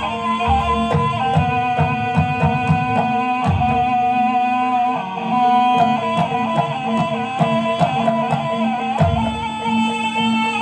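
Gamelan music accompanying a Javanese barongan performance: dense drum strokes under a held, wavering melody and a steady drone.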